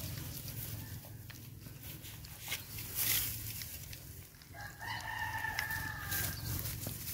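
A rooster crows once, a single held call of about a second and a half starting a little past halfway.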